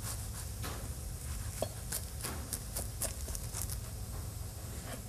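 Knife sawing through a crisp baked puff-pastry crust: irregular crackling and small snaps as the flaky pastry breaks, over a low steady hum.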